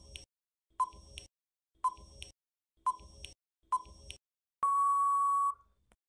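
Quiz countdown timer sound effect: five short ticks about a second apart, then one steady beep lasting about a second that marks the end of the answering time.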